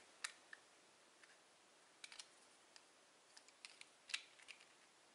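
Scattered small plastic clicks and taps from the plastic casing of an LED ceiling panel's driver as its protective cover is fitted on by hand, the loudest about four seconds in, over near silence.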